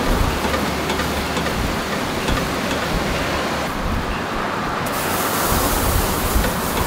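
Charcoal fire burning in an open roasting trough under a spit-turned suckling pig: a steady rushing noise with a few faint crackles.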